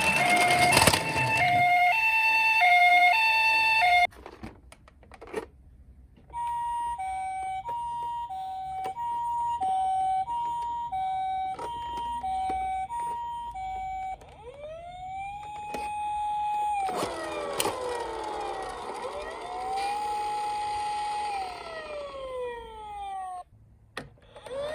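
Electronic ambulance sirens: a two-tone hi-lo siren alternates between two pitches in a steady pattern, stops, and after a short gap with scattered clicks starts again. From about halfway through, wailing sirens rise, hold and fall, several of them overlapping.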